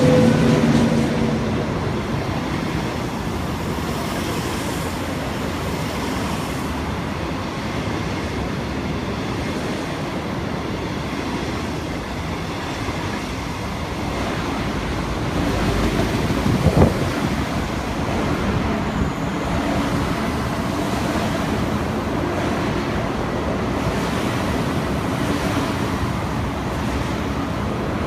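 An SS8 electric locomotive passes close by at the start with a low hum, then a long rake of passenger coaches rumbles steadily past on the rails. From about halfway through the rumble grows louder as an electric multiple unit passes on the nearer track, with one sharp clack.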